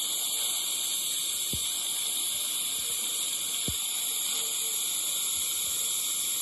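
Dental saliva ejector sucking with a steady hiss, and two soft low knocks about two seconds apart.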